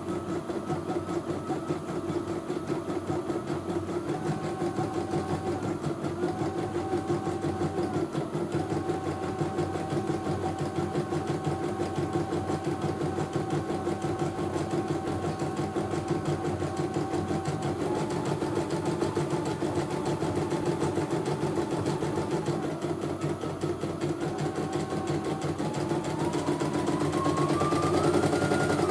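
CNY E900 computerized embroidery machine stitching a design: a rapid, even needle clatter under a motor whine that steps up and down in pitch, climbing in several steps near the end.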